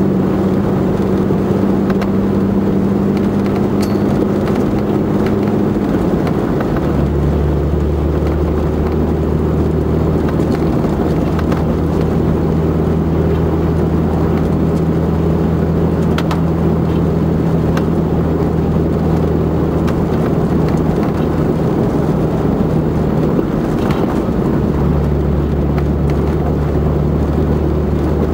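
A vehicle's engine drones steadily over the noise of tyres on a gravel road. The engine note drops to a lower pitch about six seconds in and wavers briefly near the end, with a few sharp ticks like stones hitting the body.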